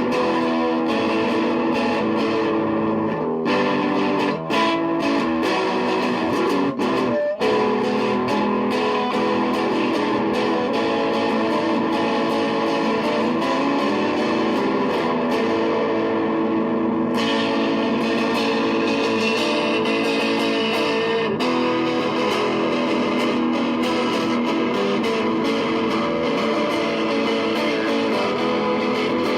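Guitar-led music playing at a steady level.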